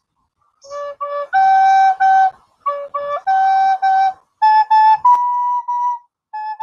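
A descant recorder playing a simple tune of clear, separate notes, many in repeated pairs, some short and some held, climbing from the lower notes to higher ones.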